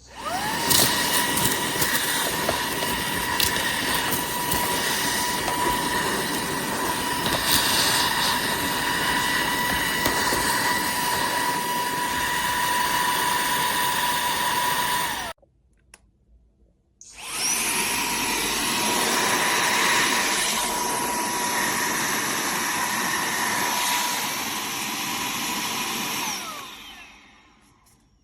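Cordless handheld vacuum cleaner running: the motor spins up to a steady high whine, cuts off abruptly about halfway through, then after a short silence is switched on again and runs before winding down near the end.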